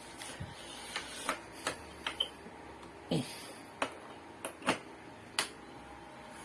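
About ten irregular sharp clicks and taps from handling the home-theatre board and test gear, as the unit is connected up for a voltage check.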